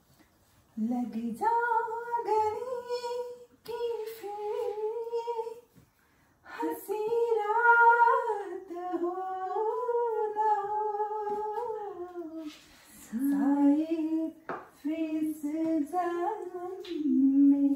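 A woman singing a tune unaccompanied, in several phrases of held and gliding notes with brief pauses between them.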